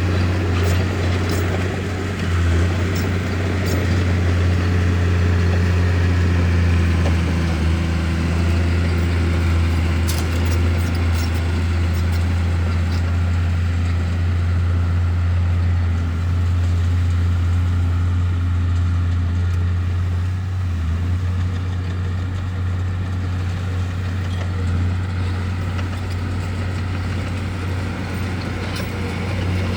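Bulldozer's diesel engine running steadily with a deep, even drone, with a few faint clicks in the first half.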